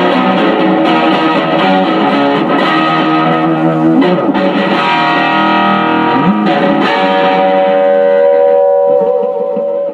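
P90-equipped Les Paul Junior electric guitar played loud through a 1970s Unicord solid-state 2x10 combo amp turned wide open, the amp distorting on its own. A fast run of notes gives way to long held, ringing notes about seven seconds in.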